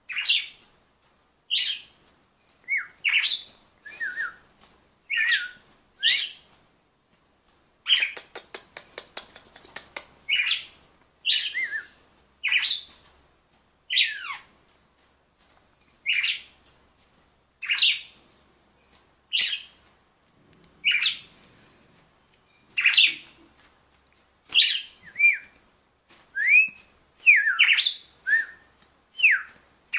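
Red-cowled cardinal (galo-de-campina) singing: short, sharp falling notes repeated every second or two, with a quick run of clicks about eight seconds in.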